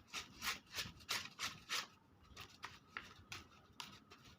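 Freshly made glue-and-activator slime being mixed and worked, a quick run of soft sticky squelches about three a second, thinning to a few scattered clicks after about two seconds.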